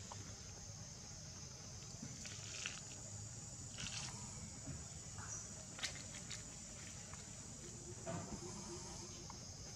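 Steady high-pitched insect chorus, with a few short clicks and brief sharper sounds scattered through, the loudest about six seconds in.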